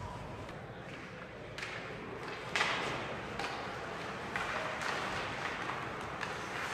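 Ice hockey play in an arena: a string of sharp knocks and short hissing scrapes from sticks, puck and skates on the ice, the loudest about two and a half seconds in.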